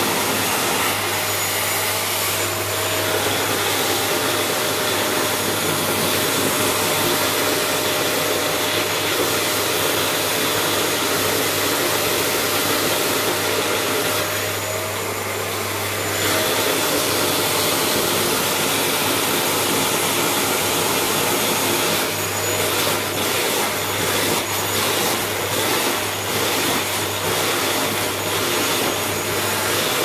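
Canister vacuum cleaner running steadily with its nozzle worked over a Newfoundland dog's thick coat. The sound dips and changes briefly about halfway through, and turns uneven and fluttering in the last several seconds.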